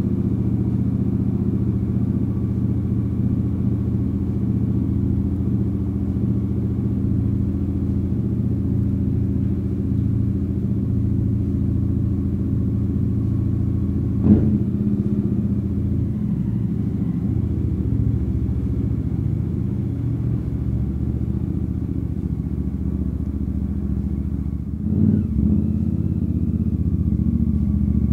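Royal Enfield Super Meteor 650's 648 cc parallel-twin engine running steadily under way, with a short knock about halfway through and a brief drop and rise in the engine sound near the end.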